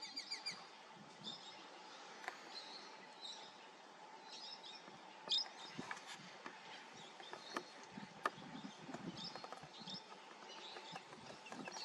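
Wild birds chirping in short runs of high notes, with a quick trill at the start, over a faint steady hum. A few sharp clicks stand out, the loudest about five seconds in.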